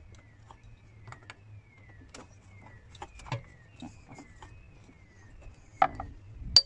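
Small metallic clicks and taps as the camshaft locking tool is handled and seated at the camshaft ends of a VW 1.4 TSI cylinder head, with one louder knock shortly before the end. A high falling chirp repeats a little faster than once a second over a low steady hum.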